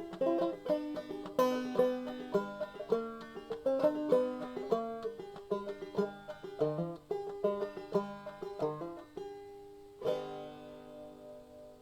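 Banjo music: a quick run of plucked notes, ending on a chord about ten seconds in that rings out and fades away.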